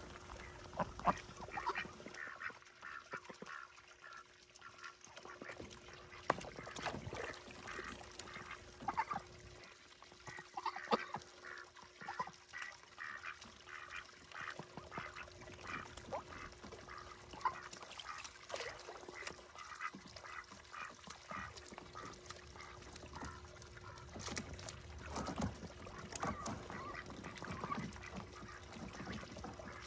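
Domestic ducks quacking, with many short calls repeated throughout, over a steady low hum.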